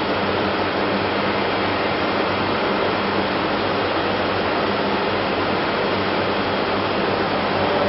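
Steady machine noise from the CNC router's machinery: an even hiss with a low hum that holds unchanged, with no tool-change clicks or air bursts.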